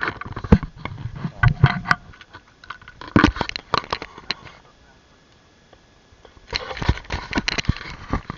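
Handling noise close to the microphone: irregular knocks, clicks and crackly rustling, quiet for a couple of seconds about halfway through, then dense rustling again near the end.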